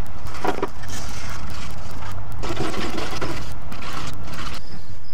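Hand wire brush scrubbing the painted sheet metal of a Datsun 240Z engine bay in uneven bursts of scraping. It is scuffing the clear-coated original orange paint so that new paint will stick.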